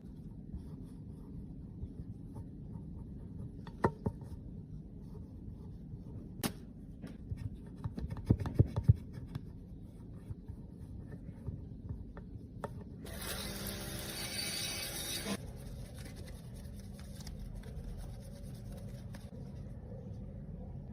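Close-up scraping and rubbing of a small tool on makeup and its container, with a few sharp taps and clicks and one longer, harsher scrape near the middle.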